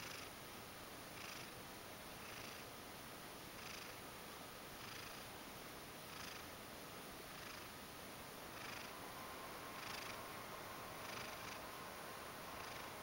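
Ragdoll cat purring softly while being stroked, the purr swelling with each breath about every second and a quarter.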